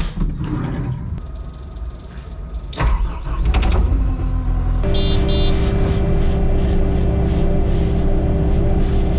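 Knocks and rattles of climbing into the cab, then about five seconds in the diesel engine of a Kubota skid steer loader starts, with two short double beeps from the dash, and runs steadily, heard from inside the cab.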